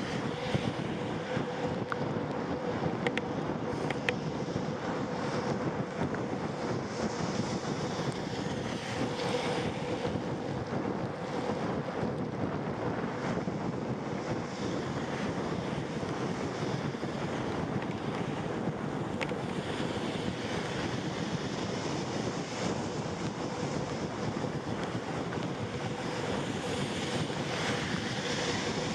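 Steady rushing travel noise of a moving vehicle, with wind on the microphone and a faint steady hum underneath.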